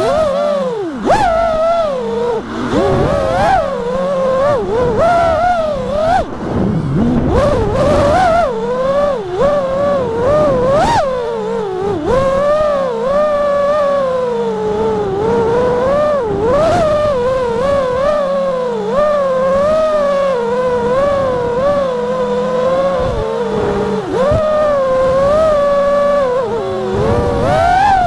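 FPV freestyle quadcopter's motors and propellers whining in flight, the pitch swooping up and down as the throttle is punched and cut.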